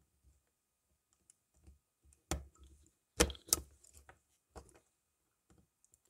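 IDC punch-down tool clicking as it seats and trims the blue and blue-white wires in the faceplate's insulation-displacement terminals. A sharp click about two seconds in, then the two loudest just after three seconds, a third of a second apart, with lighter clicks around them.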